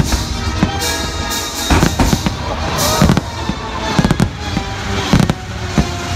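Aerial fireworks shells bursting in quick succession, a run of sharp bangs that starts a couple of seconds in and keeps coming in clusters. Show music plays underneath throughout.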